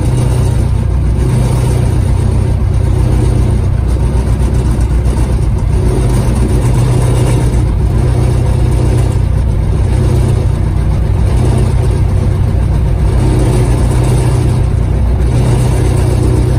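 Rutan Defiant's front and rear piston engines both idling at about 900 rpm, heard from inside the cockpit: a loud, steady low drone that swells and fades every couple of seconds.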